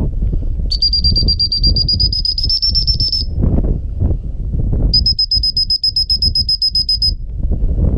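Gundog whistle blown in two long blasts of about two seconds each, the first rising slightly in pitch, with wind rumbling on the microphone throughout.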